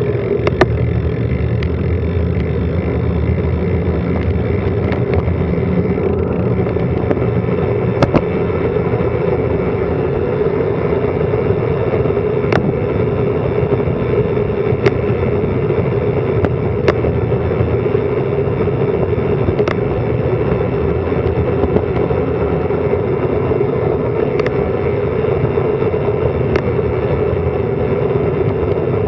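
Steady rush of wind and road noise on a bicycle-mounted action camera during a fast downhill descent, with a scattering of brief sharp clicks.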